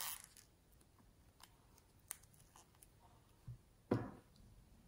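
Faint handling noises of small modelling-clay pieces: a brief rustle at the start, scattered light clicks, then a small thump and a louder short thump about four seconds in.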